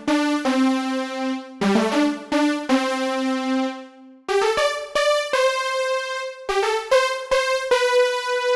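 Unfiltered Audio LION software synthesizer playing a bright, keys-like patch: short runs of quick notes, each settling onto a held note, in phrases about every two seconds.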